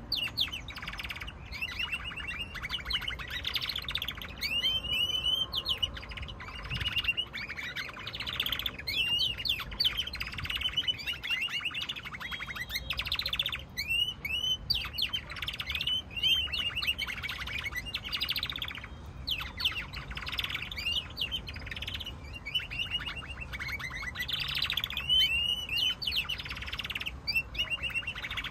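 Domestic canaries singing an almost unbroken song of fast trills and sweeping chirps.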